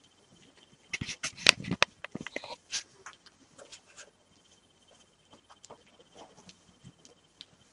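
Hungry three-day-old Rafeiro do Alentejo puppies squeaking and whimpering as they crawl over bedding, with rustling of the sheet. The loudest cluster of sounds comes about a second in, followed by scattered softer noises.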